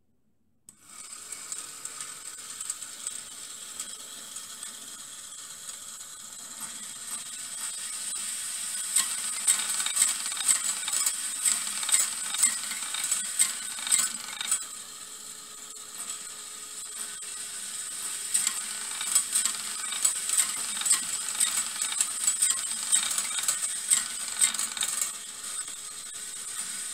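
Small wooden marble machine running: a small electric motor turns the twisted wooden screw lift while steel balls roll along brass wire rails and click as they drop and knock together. It starts about a second in and grows busier, with sharp clicks every second or so.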